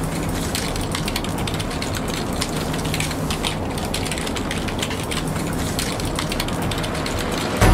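Steady, dense, rapid clicking and rattling, like a mechanical ratchet or typing, over a faint low hum. Loud music comes in abruptly at the very end.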